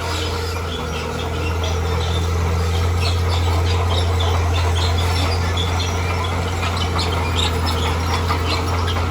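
Heavy diesel earthmoving machine running steadily, its low engine drone getting louder about a second and a half in, with many short high chirps over it.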